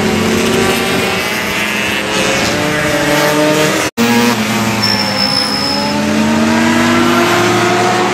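Classic racing motorcycle engines running hard as bikes lap the track, their notes gliding up and down through the revs. The sound breaks off for an instant about four seconds in, and then an engine note climbs steadily as a bike accelerates.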